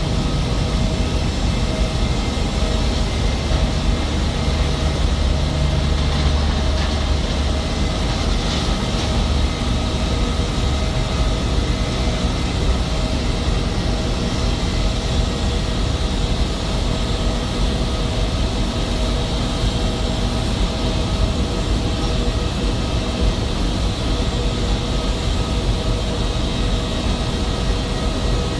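Jet aircraft engines running steadily: a constant low rumble with steady whining tones over it.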